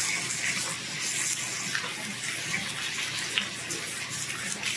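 Pork belly slices and whole garlic cloves sizzling steadily on a hot tabletop grill plate, with a few small crackles.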